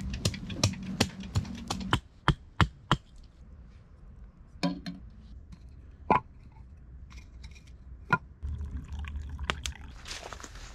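Sharp wooden strikes of wood being chopped and knocked, about three a second for the first three seconds, then a few single knocks of short logs being set in place; a soft rustle comes in near the end.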